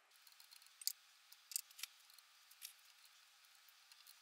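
Faint handling sounds: a few light, sharp clicks and small scrapes as gloved hands work at the mill's V-belt pulleys, the two loudest about one and one and a half seconds in.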